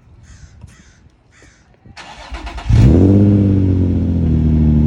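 Infiniti G35's 3.5-litre V6 cold-started through an HKS replica exhaust: the starter cranks about two seconds in, the engine catches with a loud flare of revs about a second later and settles into a steady fast cold idle.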